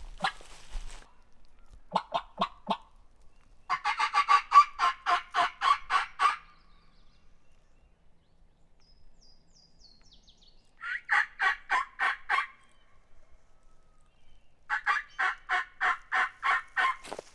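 Turkey yelps blown on a hunter's mouth call: a short run of three notes, then three longer runs of about eight to a dozen evenly spaced, loud notes, several seconds apart. A small bird chirps faintly in the pause between runs.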